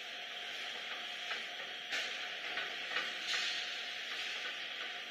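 Steady hum and hiss of a box-making machine, with a few light clicks and taps in the middle as the cover board is handled against the machine's metal guides.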